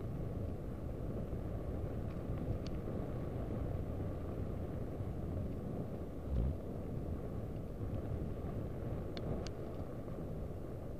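Mountain bike in motion: a steady low rumble of wind on the microphone and tyres on the trail, with a few sharp clicks and one low thump about six seconds in.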